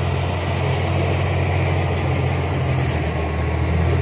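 Hitachi hydraulic excavator's diesel engine running steadily as the machine swings, a constant low hum.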